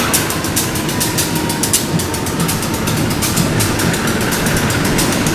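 A train running through the station, with a fast, steady clatter of wheels over the rail joints above a constant low rumble.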